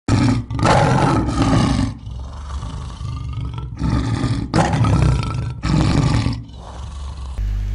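Lion roaring: two long, loud roars, about half a second in and about four and a half seconds in, with quieter stretches between and after them.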